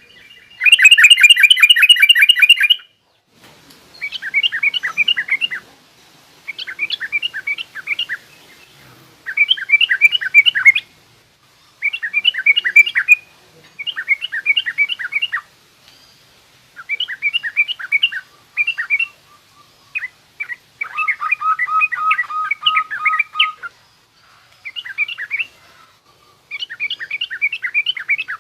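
Yellow-vented bulbul (trucukan) singing a rough, twittering song in repeated phrases of rapid chattering notes, each phrase lasting two to three seconds with short pauses between.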